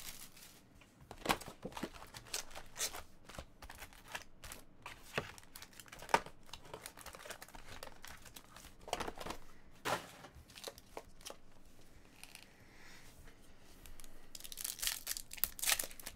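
Plastic wrapping and a foil trading card pack being handled and torn open: scattered crinkles, rustles and clicks, with a sharp click about six seconds in and a denser stretch of tearing and crinkling near the end as the pack is ripped open.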